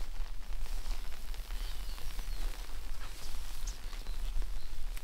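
Light rain patter and rustling of vegetation, over a low, uneven rumble.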